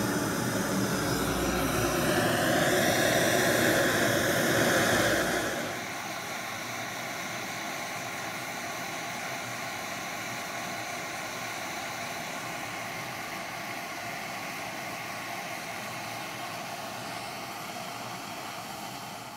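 Gas torch burning steadily inside a small fire-brick forge, a steady rushing hiss, as a farrier's rasp is heated to a glow for annealing. It is louder and fuller for about the first six seconds, then drops to a lower, even level.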